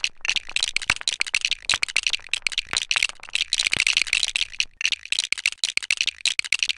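A dense run of rapid, irregular clicks and rattles with no speech.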